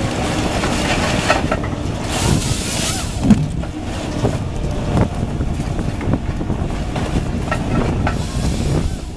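Log Max 7000XT processor head on a Kobelco excavator carrier working radiata pine: the diesel engine and hydraulics run steadily under load, with a string of sharp knocks and clunks from the head handling the logs.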